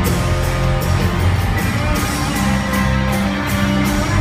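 Live country-rock band playing over a stadium sound system, with electric guitar over a steady drum beat.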